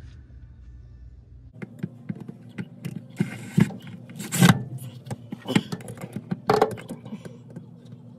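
Cordless drill driving a self-tapping screw through a transmission oil cooler's mounting bracket into a VW Vanagon's underbody, heard as irregular bursts of drilling and scraping with sharp metal clicks. The loudest crack comes about four and a half seconds in.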